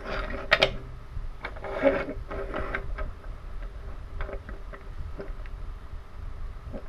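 Wooden toy train engines being handled and set down side by side on a table: a cluster of wooden clacks and knocks in the first three seconds, then scattered light clicks.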